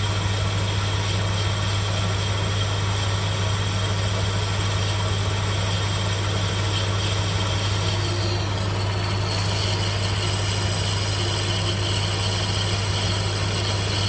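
Metal lathe running steadily with a low motor hum while a parting tool cuts into the spinning metal bar to part off a finished gear lever, with a faint high whine from the cut.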